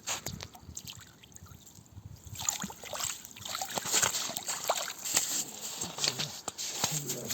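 Water splashing and trickling in an ice-fishing hole as a hooked fish is pulled out, turning into dense crackling splashes about two and a half seconds in.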